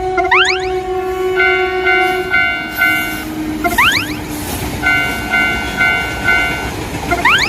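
Railroad crossing alarm bell ringing at about three strikes a second, pausing briefly three times as a rising whistle-like sweep cuts in, over the steady rush of a passing train.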